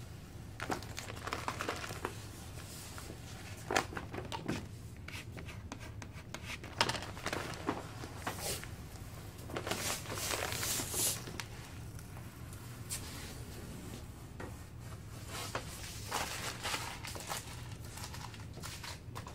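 Paper sheet being peeled off a vinyl paint stencil and crumpled by hand: irregular crinkling and rustling, loudest about ten seconds in.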